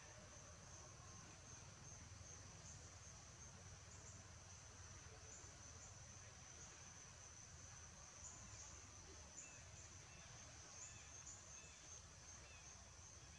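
Faint, steady, high-pitched insect drone, with a few faint short chirps in the second half.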